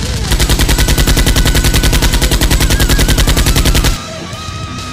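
Automatic-gunfire sound effect dubbed over toy-blaster firing: a rapid, even burst of about a dozen shots a second that stops abruptly about four seconds in.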